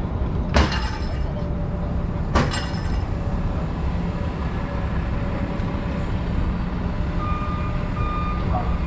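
Steady low rumble of city traffic, with two sharp knocks about half a second and two and a half seconds in. Near the end, a high electronic beep starts repeating at an even pace.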